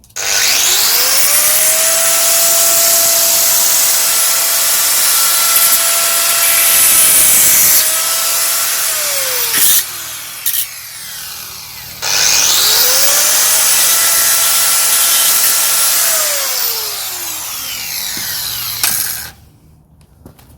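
Electric power saw cutting wood in two runs: the motor whines up to speed, runs steadily through a cut and winds down about 10 s in, then starts again about 12 s in and winds down near the end.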